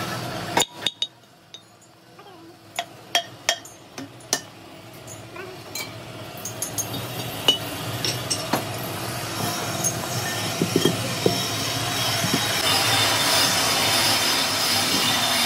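Metal clinking and knocking in a metalworking shop: sharp, irregular single knocks, then a steady machine noise that builds gradually through the second half with more clinks over it.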